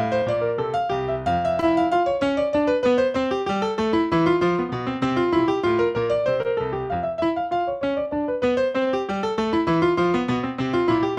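Solo piano music: a continuous flowing run of notes, with quick arpeggiated figures over a lower accompaniment.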